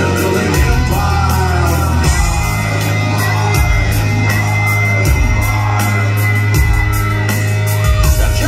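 Live rock band playing loudly through a club PA: electric guitars, bass and drums under a man singing, with long held notes from about two seconds in.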